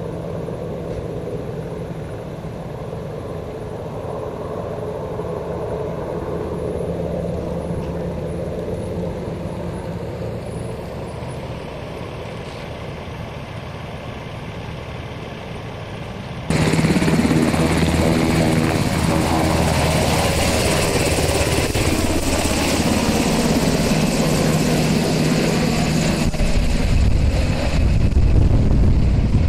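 Fire department rescue helicopter, with its rotor and turbine engine running steadily and fairly distant at first. About halfway through it turns suddenly much louder and closer, and its engine tones fall in pitch as it passes. A heavy low rumble of wind on the microphone comes in near the end.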